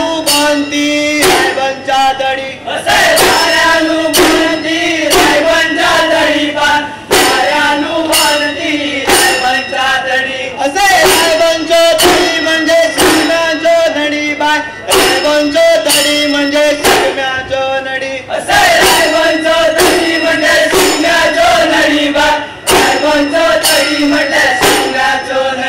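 A group of men singing a folk song in unison, chant-like, with drum strokes and small hand cymbals keeping the beat.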